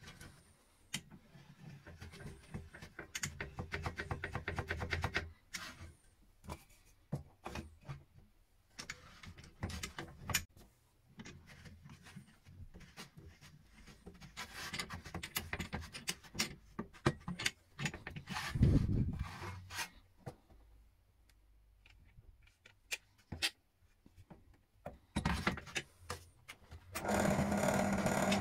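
Workshop handling sounds of wooden parts and tools: scattered clicks and knocks with stretches of rubbing and scraping, and one heavier thud partway through. Near the end a power tool's motor starts and runs steadily.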